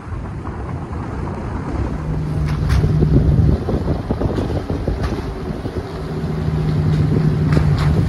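Wind rushing on the microphone from a moving car, over the car's low road rumble; a steady low hum comes in twice, about two seconds in and again about six seconds in.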